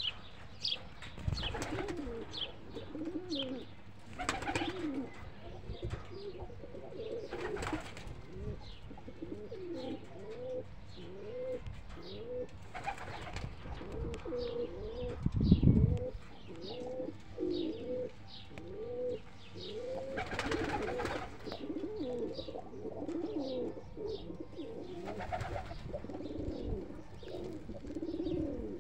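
Domestic Iranian Tehrani pigeons cooing, one coo after another with overlapping voices, while fainter short high chirps run above them. A brief low thump about halfway through is the loudest sound.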